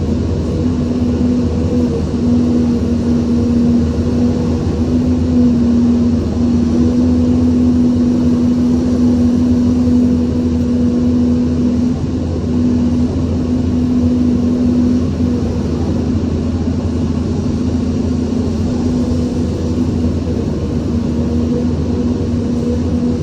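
Excavator's diesel engine running steadily: a constant low rumble under an even hum.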